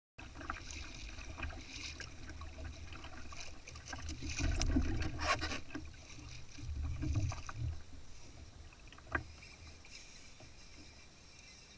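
Water sloshing against a sit-on-top fishing kayak's hull, with small knocks and clicks as rods and gear are handled. It gets louder for a couple of seconds around the middle, and there is one sharp click near the end.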